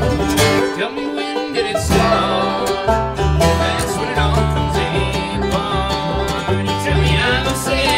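Bluegrass string band playing live: banjo picking over acoustic guitar, upright bass and mandolin. The bass notes drop out for a moment about a second in.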